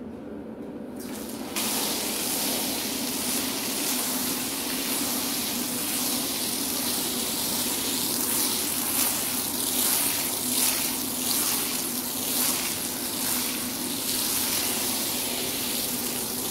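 Pressure-washer wand spraying water onto a wet pile rug: a steady hissing spray that starts about a second and a half in and wavers as the jet sweeps across the carpet, over a low steady hum.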